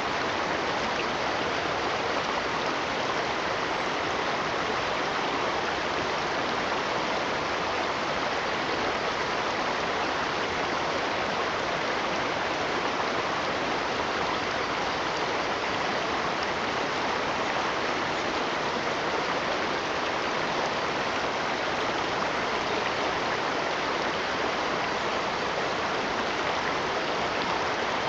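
Steady, unbroken rushing of running water, with no separate splashes or drops standing out.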